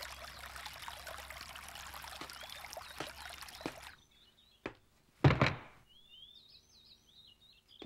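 Water splashes steadily from a spout into a stone basin for about four seconds. Then a light click and a loud thump come as a suitcase is handled, with faint birds chirping afterwards.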